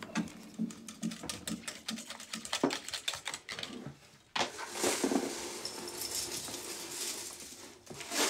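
Papers rustling and small objects clicking and tapping as someone rummages through a bedside table. About four seconds in this gives way to a steadier hiss with light handling noise.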